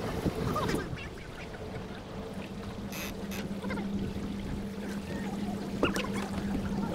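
Water rushing and trickling along the hull of a Melges 24 sailboat under way, over a steady low hum. A sharp click about three seconds in and a short knock near the end.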